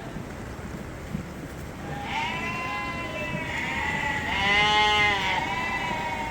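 Sheep bleating: several long, overlapping calls begin about two seconds in, with the loudest near the end.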